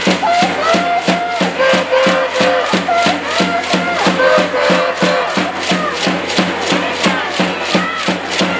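School cheering section in the stands beating out a steady rhythm of about four strokes a second while chanting or singing in unison.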